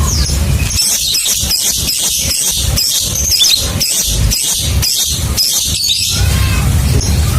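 Lovebird ngekek: a long, fast, unbroken run of shrill high chirps from about a second in to about six seconds in, over a low rumbling hum.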